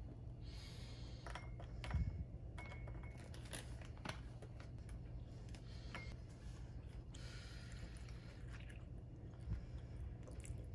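Dried shrimp and dried shiitake mushrooms are dropped by hand into a glass bowl on a digital kitchen scale, making faint light clicks and rustles, with a sharper knock about two seconds in and a few short beeps. Near the end, water is poured into the bowl.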